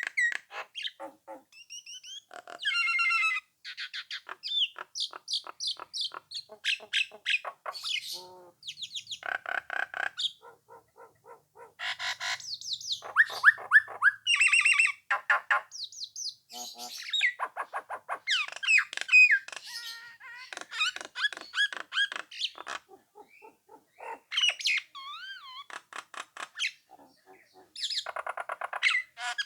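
Nias hill myna singing a rapid, varied stream of whistles, chattering notes and squawks, broken by short pauses.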